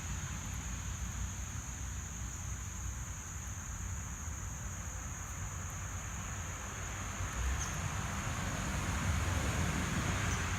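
Outdoor ambience: a low wind rumble on the microphone under a steady high-pitched insect drone, with the rumble swelling a little near the end.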